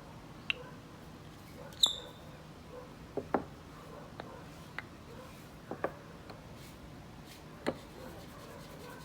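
Scattered light knocks and clicks of wooden parts and hand tools being handled and set down on a workbench, about ten in all at uneven spacing. The loudest comes about two seconds in and carries a short high ring.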